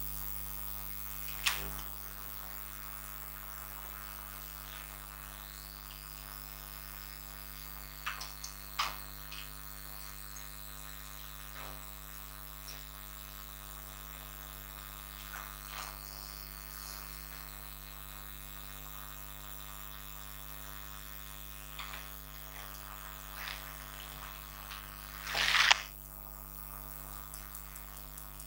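Steady electrical mains hum in the audio feed of a clip-on microphone, with a few faint clicks and one louder short burst of noise near the end.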